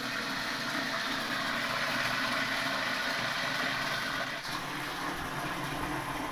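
Tap water running in a steady stream into a plastic pail that holds a dipper, filling it.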